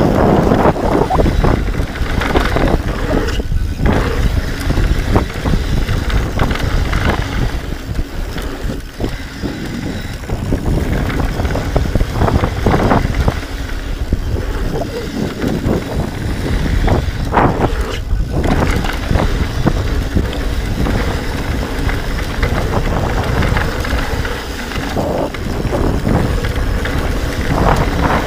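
Mountain bike descending a dirt trail at speed: wind buffeting the camera microphone over the rush of tyres on dirt and the bike rattling, with a few short squeaks.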